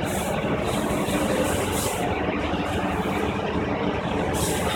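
John Deere 5050 D tractor's three-cylinder diesel engine idling steadily.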